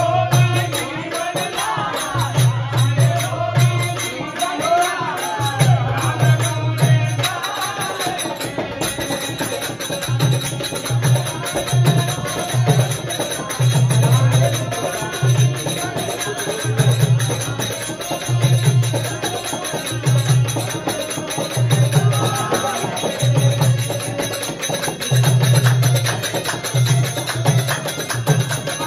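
Devotional bhajan music: a man singing to harmonium over a steady low beat and jingling percussion. The voice drops out about eight seconds in while the instruments play on.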